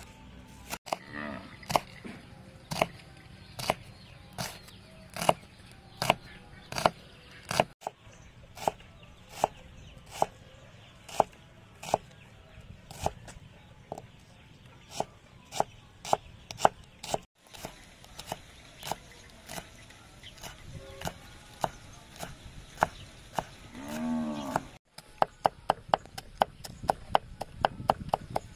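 Large kitchen knife chopping on a wooden cutting board, slicing green onion and shallot in single strokes about once a second, then mincing garlic in quicker strokes, about three a second, near the end. An animal calls once in the background shortly before the quick chopping.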